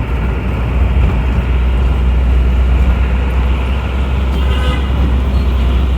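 City street traffic with vehicle engines running steadily, and a short horn toot about four and a half seconds in.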